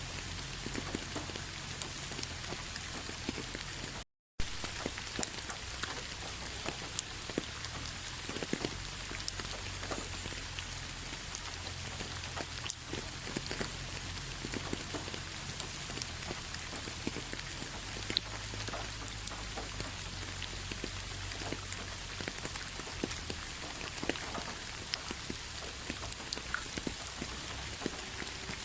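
Steady rain, with many separate drops ticking sharply on a hard surface over a constant hiss. The sound cuts out completely for a moment about four seconds in.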